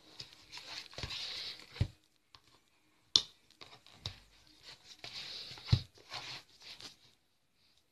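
A thick cardboard board book handled by hand: rubbing and scraping as it slides on the surface and is turned over and back, with three sharp knocks as it is set down.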